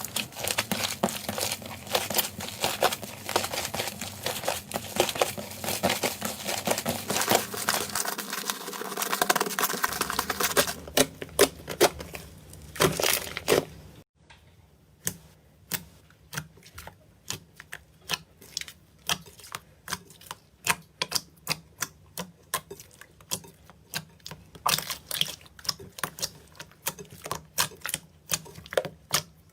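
Slime being squished and poked by hand: dense sticky crackling and popping for about the first ten seconds, thinning out, then after a sudden drop about halfway through, a quieter run of separate clicks and pops, a couple to a second.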